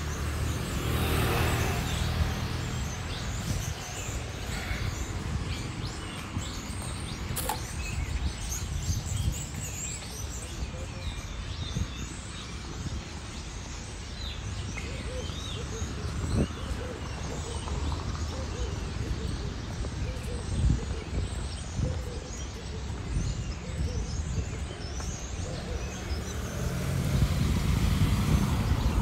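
Street ambience: birds chirping over a steady low traffic rumble, with a car passing close by near the end.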